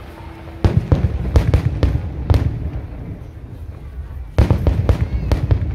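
Fireworks display: aerial shells bursting in a quick run of sharp bangs from just under a second in, then a pause, then another close volley of bangs near the end.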